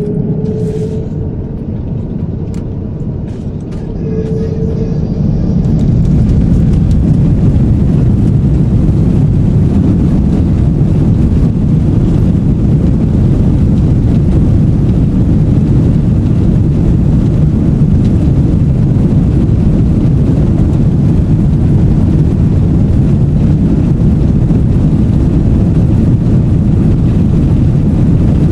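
Jet airliner engines heard from inside the cabin: a deep, steady rumble that swells about five seconds in and then holds loud and even.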